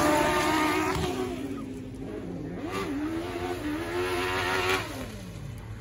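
Autocross buggies' engines racing on a dirt track, each engine's pitch climbing and dropping several times through gear changes, with a long fall in pitch near the end. The engines fade as the cars pull away.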